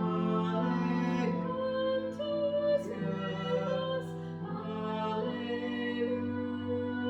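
Slow music with long held notes that change every second or two, one of them wavering slightly.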